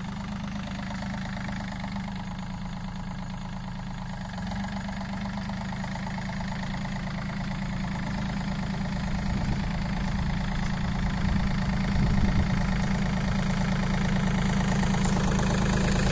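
Tractor diesel engine running steadily while it works a mounted boom sprayer, growing louder toward the end as it comes close.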